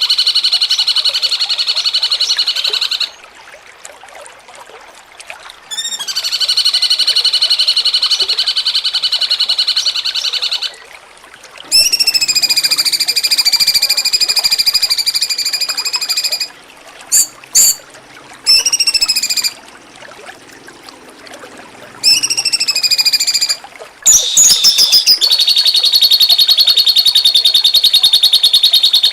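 Recorded song of a cucak cungkok played as masteran (a training recording for songbirds): long, drawn-out buzzy notes of a few seconds each with short pauses between them, some dipping in pitch as they begin, and a fast buzzing trill near the end.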